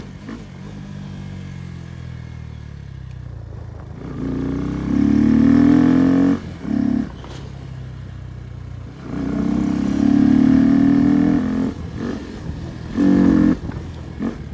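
Bajaj Pulsar NS motorcycle's single-cylinder engine under way, pulling up in pitch and loudness in several bursts, each cut off sharply as the throttle shuts, with a lower steady rumble and road noise between them.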